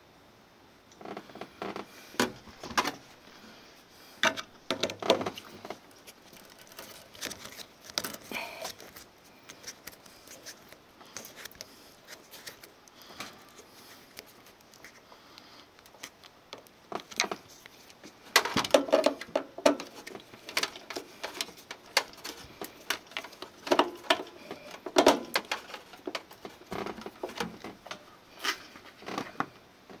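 Hand-tool work on a gas water heater's burner access panel: a screwdriver and metal parts give irregular clicks, taps and rattles in bunches, busiest a little past halfway.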